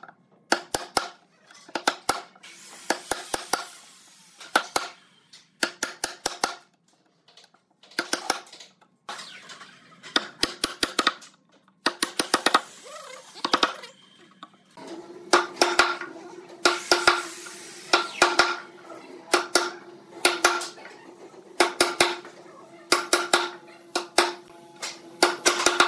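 Wooden mallet striking a steel wood chisel as it chops a notch into a pine board: quick clusters of sharp knocks with short pauses between, the strikes leaving a ringing note in the second half.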